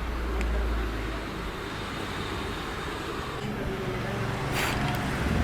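A motor vehicle's engine running close by, with a low rumble at first and a steady engine hum through the rest, like traffic passing; a short click near the end.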